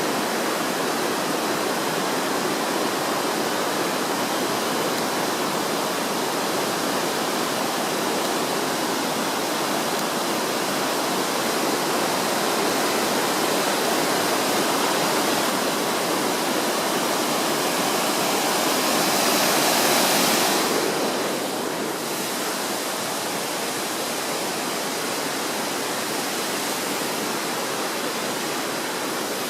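Small waterfall: water falling and rushing in a steady, dense roar, which swells louder about two-thirds of the way in and then settles a little lower.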